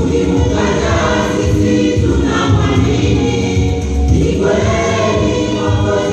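Choir singing a gospel song, many voices together.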